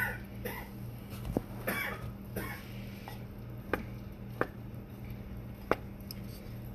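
Bamboo spoon chopping down through a soft cake and knocking on the bottom of the pot: a few sharp, short taps spaced roughly a second apart, with a duller thump about a second in.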